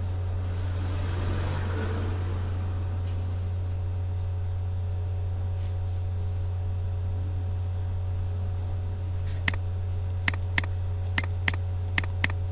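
Computer mouse clicking: seven sharp clicks from about nine and a half seconds in, mostly in quick pairs, over a steady low hum.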